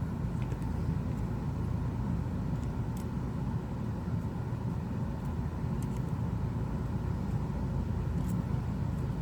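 Steady low rumble of background noise, with a few faint, short clicks about three, six and eight seconds in.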